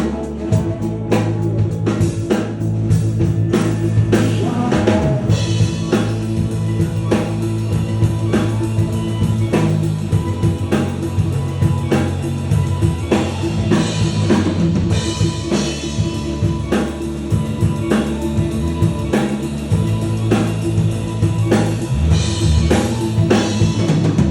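Band music without vocals: a drum kit keeps a steady beat over sustained bass notes and guitar.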